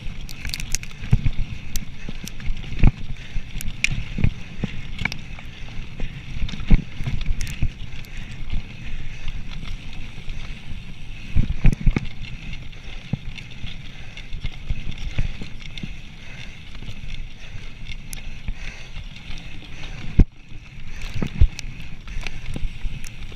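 Mountain bike ridden fast over a rough dirt trail: a steady rumble from the tyres and rattling of the bike, broken by frequent knocks and thumps from bumps in the track.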